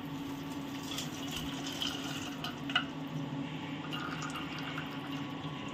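Hot sugar syrup poured through a wire-mesh strainer into a steel bowl: a faint steady trickle of liquid with a few small drips and ticks.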